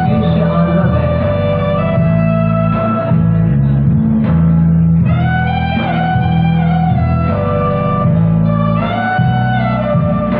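Music led by guitar, with held melody notes over a steady bass line.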